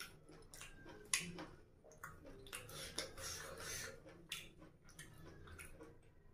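Close-miked eating sounds of a person chewing: wet mouth clicks and lip smacks at irregular intervals, the sharpest a little after a second in, with a short hissing stretch in the middle.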